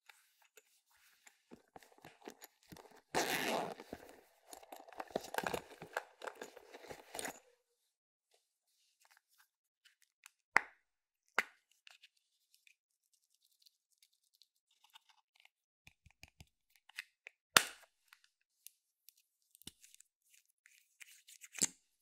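Close-up ASMR handling of makeup products and slime: about three seconds in, a stretch of dense crunching and crackling lasting roughly four seconds, then scattered sharp clicks and taps, a few of them louder than the rest.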